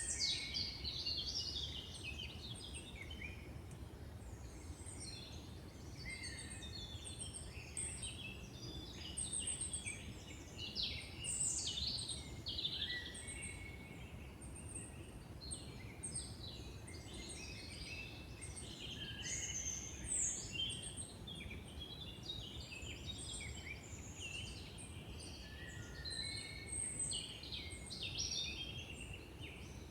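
Several songbirds singing and calling at once, with many overlapping chirps and trills, over a low steady background rumble of forest ambience.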